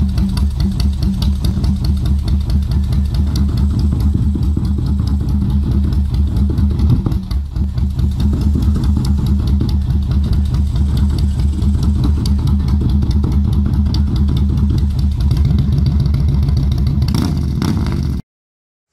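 V-twin cruiser motorcycle engine running loudly through its chrome exhaust pipes with a steady, pulsing firing rhythm. The revs climb near the end, then the sound cuts off suddenly.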